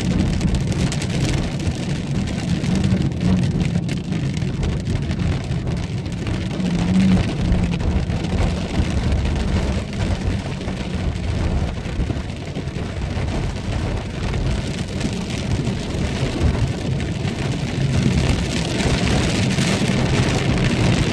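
Rain beating on the windshield of a moving car, heard from inside, over the steady rumble of the car and its tyres on the wet road. The rain hiss grows heavier near the end.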